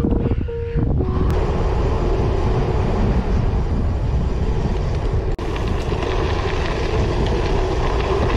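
Riding noise from a gravel bike: wind buffets the handlebar camera's microphone over the rush of 700x38 tyres rolling on the road surface. Music fades out about a second in, and the noise drops out for an instant a little past five seconds.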